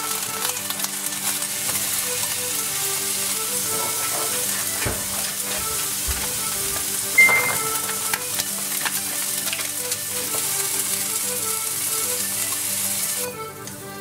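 Vegetables sizzling in hot oil in a frying pan, stirred with chopsticks, over quiet background music. A short, high ping about seven seconds in, and the sizzling drops away near the end.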